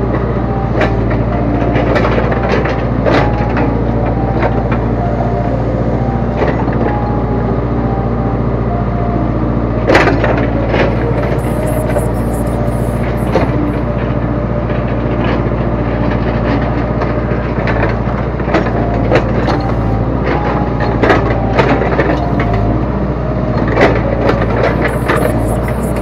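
Backhoe loader's diesel engine running steadily from inside the cab while the backhoe arm swings and digs, with frequent knocks and clunks from the arm and bucket, a louder one about ten seconds in.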